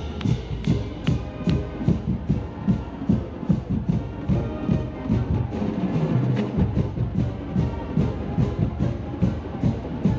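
College marching band playing, with the drums striking a steady beat about three to four times a second under sustained pitched instrument tones.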